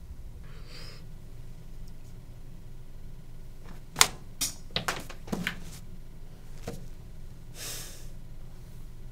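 A quick run of sharp clicks and knocks about four seconds in, the first the loudest, between two long breathy exhales over low room tone.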